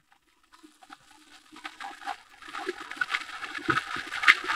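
Crumb-coated chicken pieces deep-frying in oil in a pan: sizzling and crackling that starts faintly about a second in and grows steadily louder, with a couple of low knocks near the end.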